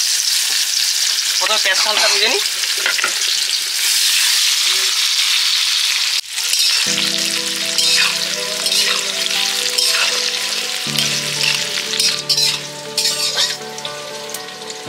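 Onions sizzling as they fry in hot oil in a kadai, being stirred. Background music with sustained chords comes in about halfway.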